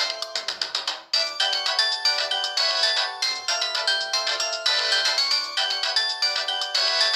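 A Samsung SGH-ZV10 mobile phone playing a polyphonic ringtone through its speaker: a fast melody of short synthesised notes. It breaks off about a second in, then starts again.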